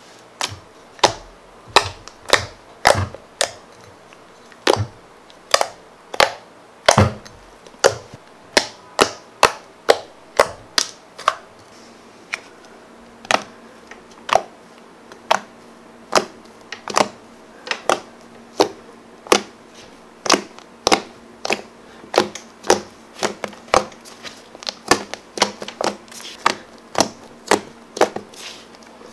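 Fingers poking and squeezing a stretchy homemade PVA-glue slime, giving a steady run of sharp, wet clicks and pops, about one or two a second.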